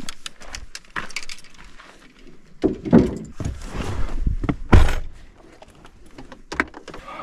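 Clicks and knocks of fishing rods and gear being handled, then bumping as someone climbs into a pickup truck's cab, and a vehicle door shutting with one loud thud just before five seconds in.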